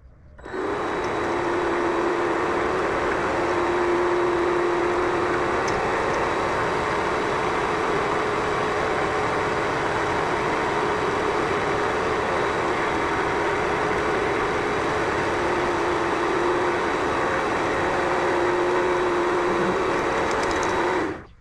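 Vevor MX400 mini lathe running steadily while a cut is taken off a spinning-top workpiece, a constant machine whine and cutting noise. It starts up about half a second in and shuts off just before the end.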